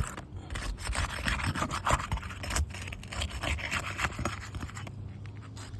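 Asphalt roof shingle tabs being worked loose with a hand tool: an irregular run of short scraping and rubbing strokes as the tabs are pried free of the shingles beneath.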